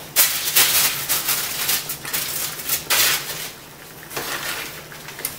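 Kitchen tap running into a sink while hands are washed under it, the splashing hiss coming and going in uneven spells.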